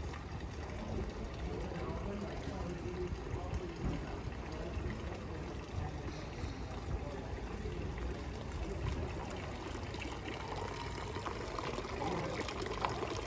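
Water from a small street fountain running and splashing steadily into its stone basin.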